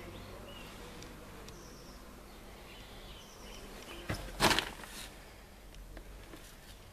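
Quiet background with a few faint, short high chirps, like small birds, and one brief knock or rustle about four and a half seconds in. No engine is running.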